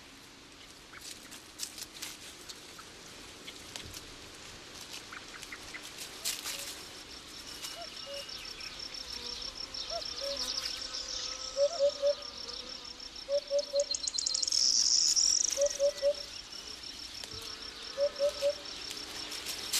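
Outdoor nature ambience. A steady, high, evenly pulsing insect trill sets in about six seconds in, and a bird repeats short groups of three low notes every couple of seconds. Light rustling and clicks come in the first few seconds.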